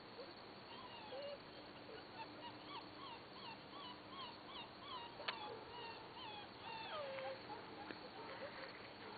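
Animal calls: a run of short, quick gliding notes, about three a second, with one sharp click about five seconds in.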